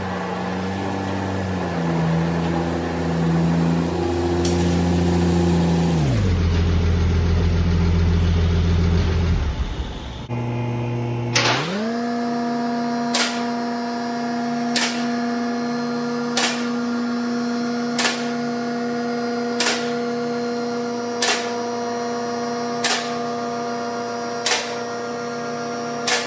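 1947 Ford truck's engine running for about ten seconds. Then an electric vehicle-lift motor spins up and hums steadily, with sharp clicks about every second and a half, the lift's safety locks catching as it raises the truck.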